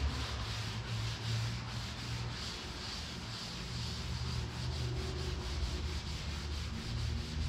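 Hand scrubbing on a wet steel truck hood, a steady rubbing that lifts the top coat of paint softened by oven cleaner, done with light pressure.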